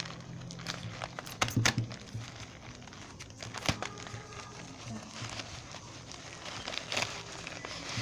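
Plastic wrapping crinkling and crackling as a parcel is unwrapped by hand, in irregular bursts with a few sharper crackles about one and a half seconds in and again near the middle.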